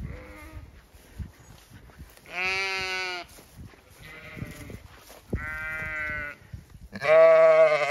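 Zwartbles ewes bleating: four long, steady bleats a second or so apart, one of them faint, the loudest near the end.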